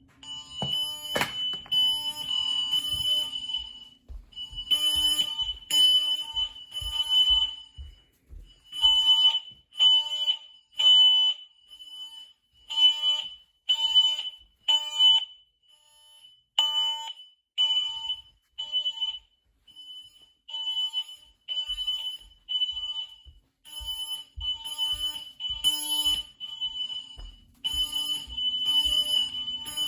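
Smoke alarms sounding during a test, very loud: high-pitched beeps repeating about once a second, in groups with short gaps between them.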